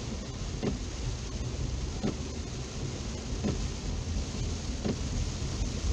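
Heavy rain on a moving car and the steady low rumble of driving on a flooded road, heard inside the cabin. Over it, the windshield wipers sweep with a short stroke about every second and a half.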